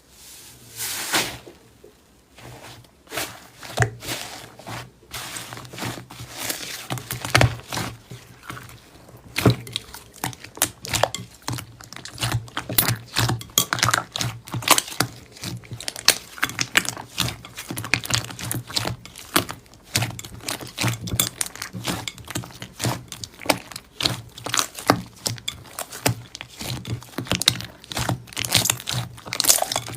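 Slime being squeezed, pressed and stretched by hand, giving a dense, irregular run of small crackles, pops and squelches.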